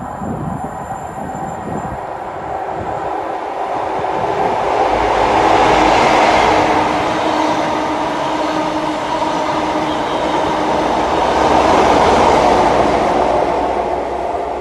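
A Network Rail HST, Class 43 diesel power cars 43290 and 43299 with yellow measurement coaches, running through a station at speed. Engine drone and wheel noise build up, swell twice as the train goes by, then ease off as it draws away.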